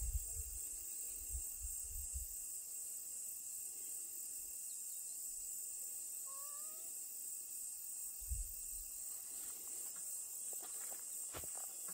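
Steady high-pitched insect chorus, with one short rising meow from a cat about six seconds in. A few low thumps come near the start and after about eight seconds, and near the end there are light scuffs and scratches as the cat paws at the dirt path.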